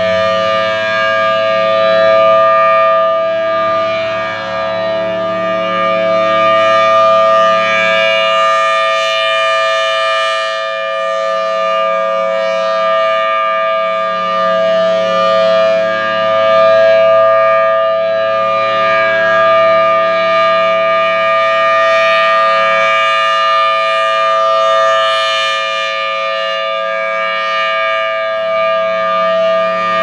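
Federal Signal Thunderbolt 1000T outdoor warning siren sounding a steady tone at an unchanging pitch. Its horn rotates, so the sound swells and fades slowly.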